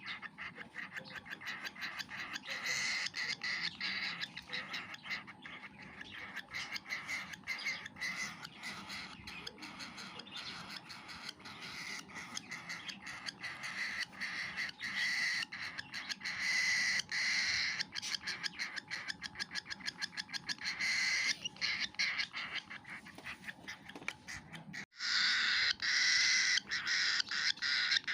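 Baby cockatiel giving its begging food calls while eating: a long, fast run of short repeated pulses, with a brief break about 25 seconds in followed by a louder stretch.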